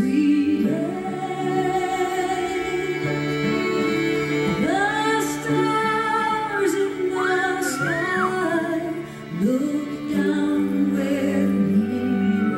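A slow song sung by a female voice over instrumental accompaniment, with long held notes.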